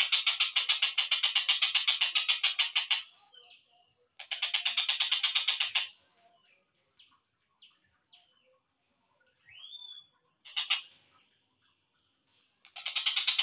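Slowed-down recording of a tengkek buto kingfisher calling: a loud, rapid, pulsing trill in long bursts. Between the bursts come faint scattered notes and one rising note, and the trill starts again near the end.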